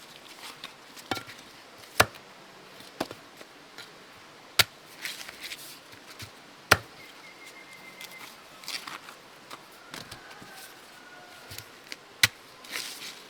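Chopping: sharp single blows at irregular intervals of one to a few seconds, four of them much louder than the rest, with brief rustling between strikes.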